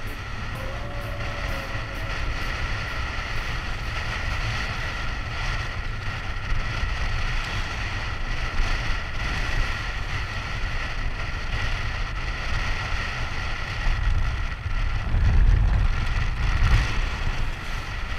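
Wind buffeting the microphone of a wingfoiler's body-mounted action camera, with water rushing past the board and a faint steady whine underneath. Heavier gusts hit the microphone near the end.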